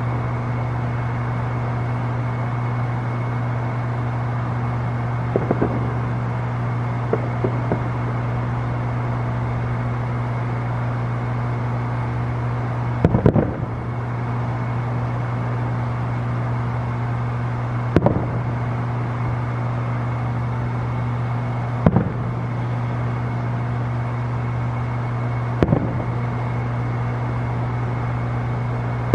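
Distant fireworks going off as about six separate booms, a few seconds apart, over a steady low hum.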